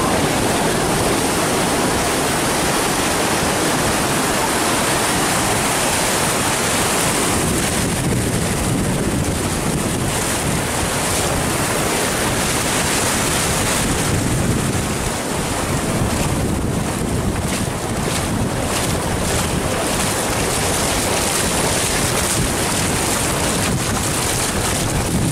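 Sea surf washing on the beach, with wind blowing across the microphone: a steady, loud rush of noise.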